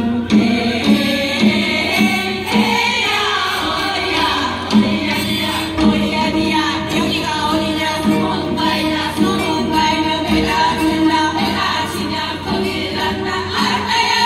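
A large group singing together, accompanied by janggu hourglass drums beating a steady rhythm.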